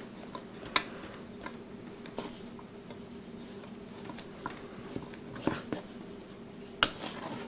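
Hands mixing wet bread dough in a stainless steel bowl, with scattered light clicks and taps of a metal measuring cup against the bowl and one sharper tap near the end, over a steady low hum.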